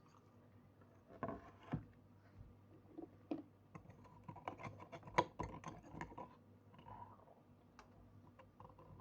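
Close-up eating sounds: irregular soft clicks and scrapes of food and utensils, with bits of crunchy chewing. They are busiest through the middle, with the sharpest click about five seconds in.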